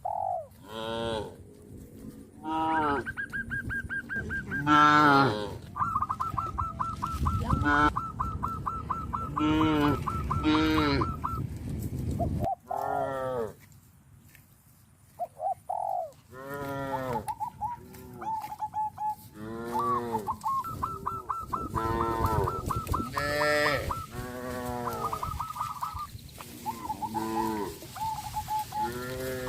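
Cattle mooing in many short calls one after another, mixed with long runs of rapid, pulsed calls from farm fowl. There is a brief lull about halfway through.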